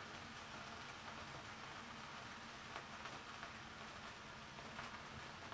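Faint steady sizzle of chopped onions frying in oil in a skillet, with a few small crackles.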